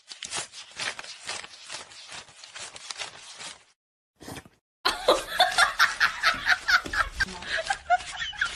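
Banknotes being counted by hand: a rapid run of crisp paper flicks that stops after about three and a half seconds. From about five seconds in, loud rapid laughter in short repeated bursts.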